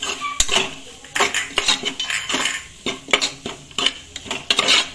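Metal spoon scraping and clinking against the inside of a metal pressure cooker while stirring a thick spiced onion-tomato masala, in a run of irregular strokes.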